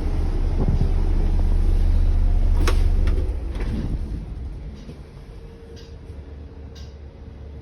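Volvo B8L bus's six-cylinder diesel engine running loud and deep for about three seconds, with a sharp click near the peak, then dying down to a quieter hum. A faint steady tone comes in near the end.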